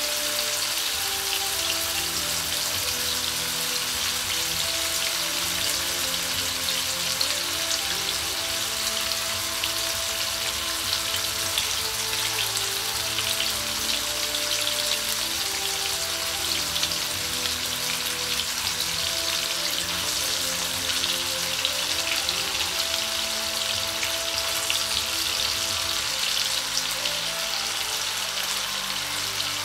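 Thin slices of beef frying in hot oil in a nonstick pan: a steady, dense crackling sizzle. Soft background music of held notes plays underneath.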